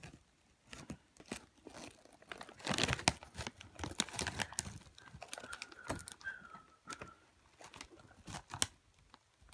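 Rustling and crinkling handling noise with many scattered clicks, busiest a few seconds in.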